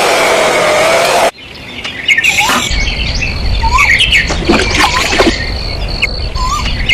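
A steady whirring noise cuts off abruptly about a second in. Birds then chirp in short, scattered calls over a low rumble.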